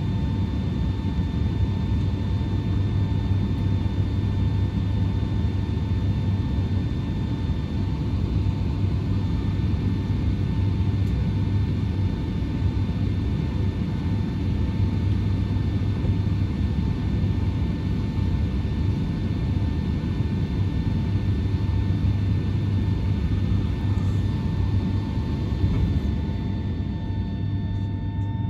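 Boeing 757-300 cabin noise on the ground with the jet engines at idle: a steady low rumble under an even whine held at a few fixed pitches.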